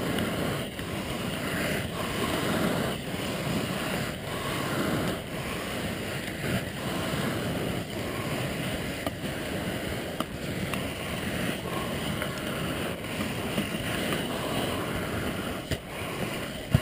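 A steady, wavering rushing noise with a few faint clicks. This is skis shuffling and sliding over the Snowflex artificial ski surface, mixed with wind on the microphone.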